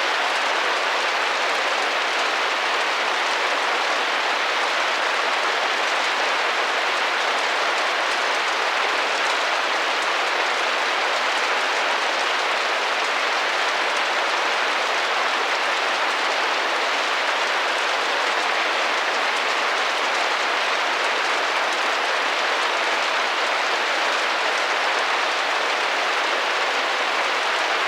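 Steady rain tapping against a window pane, an even patter with no single drops standing out and no change in strength.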